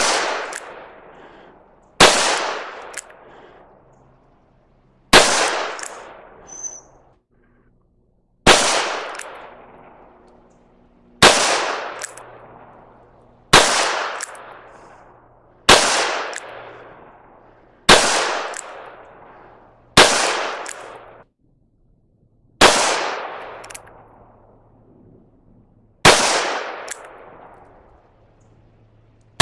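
Ruger GP100 .357 Magnum revolver being fired, a slow string of about ten single shots two to three seconds apart. Each shot has a long echoing decay.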